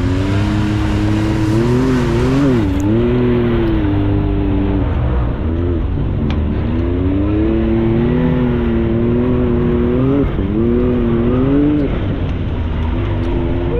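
Side-by-side UTV engine revving up and down repeatedly as it drives over deep snow.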